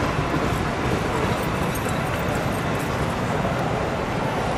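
Steady background noise of a busy indoor exhibition hall: a low hum with a faint crowd murmur.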